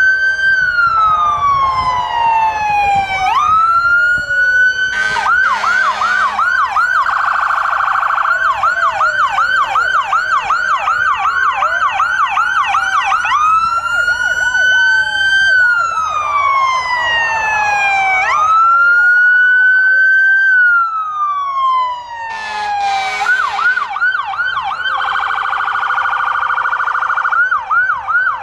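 Fire truck sirens switching between a slow wail, rising in about a second and falling over two to three seconds, and a fast yelp of two or three sweeps a second. Short loud bursts of a second sound come near the start, about a third of the way in and near the end.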